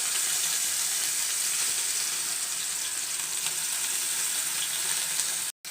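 A pounded paste of thuthuvalai leaves, garlic, ginger, pepper and cumin sizzling in hot refined oil in a pan: a steady hiss with a few faint ticks. It breaks off abruptly for an instant near the end.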